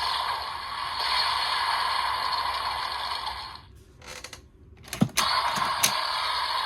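Kamen Rider Geats DX Desire Driver toy, fitted with the Plosion Rage buckle, playing electronic sound effects through its small speaker. The sound breaks off for about a second, then two sharp plastic clicks as the handle is worked, and the effects start up again.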